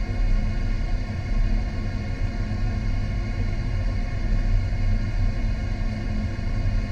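Steady low rumble of the fish tank heard underwater, with a constant mechanical hum running through it.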